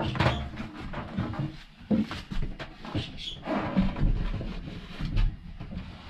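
Handling noise as a small microwave oven is lifted and set onto a wooden shelf: irregular knocks, bumps and scrapes.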